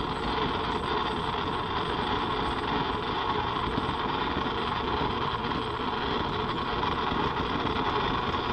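Fun Kitchen soup maker's blade motor running steadily on the pulse setting, chopping and blending the soup in the jug.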